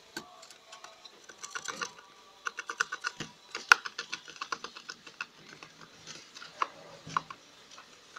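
A lop-eared rabbit gnawing a cardboard toilet-paper tube: quick runs of small crunching clicks, with one louder crack a little after three and a half seconds.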